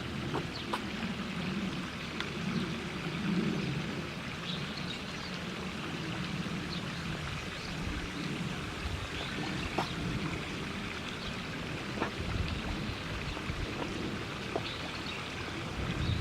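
Running water, a steady trickling and splashing wash.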